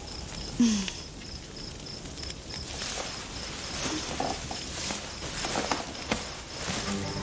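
Crickets chirping in a steady, even pulse, with scattered soft rustles and one brief louder sound with a low falling pitch about half a second in.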